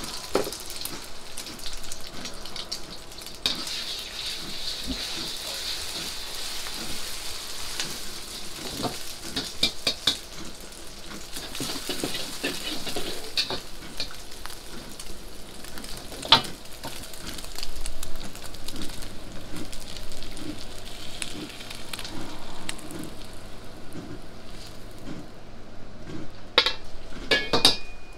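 Beaten egg frying in hot oil in a wok over a gas burner: a steady sizzle, strongest in the first few seconds after the egg goes in. A metal ladle scrapes and knocks against the wok, with a quick run of clanks near the end.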